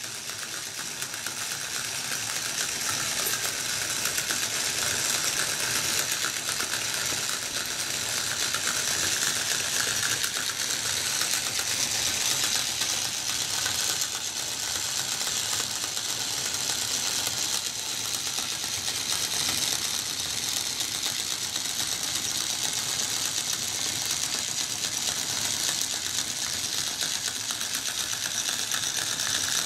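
Small DC electric motor running fast through its reduction gearbox and gear train, the gear teeth making a steady, dense whirring clatter as they turn a paper pinwheel. It builds slightly over the first few seconds, then holds steady.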